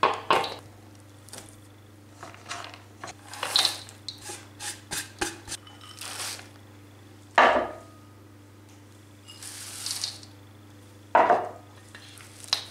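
Chopped nuts and dried fruit dropped and poured into a stainless steel mixing bowl, with a wooden spoon knocking against it: scattered clicks, a quick run of small ticks about five seconds in, and a few louder knocks.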